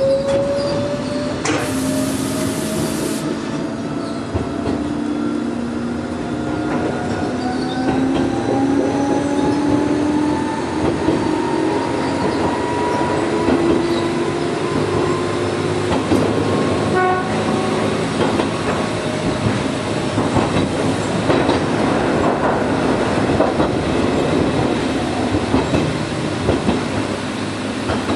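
Gakunan Railway electric train pulling away and accelerating, its motor whine rising steadily in pitch over the first ten seconds or so, with a brief hiss about two seconds in. As speed builds, wheels clatter over the rail joints.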